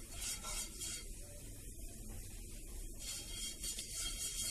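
Silicone brush swept over a hot nonstick frying pan, spreading ghee: faint scratchy swishing strokes, a few near the start and a quicker run of them in the last second and a half.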